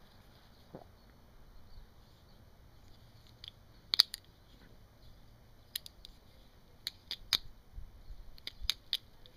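Small balisong (butterfly knife) being handled, its handles and stainless latch giving sharp metal clicks. There is a single click about four seconds in, then a quicker run of clicks over the last few seconds.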